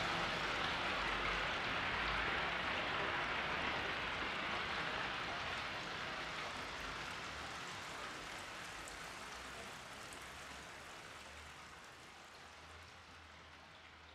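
Steady rain-like hiss, the noise texture of an ambient electronic drone piece, fading out slowly to near silence.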